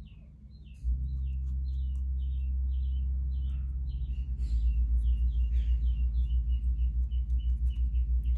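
A bird chirping over and over, short falling chirps two or three a second, over a low rumble that starts suddenly about a second in and turns into a fast throb about four seconds in.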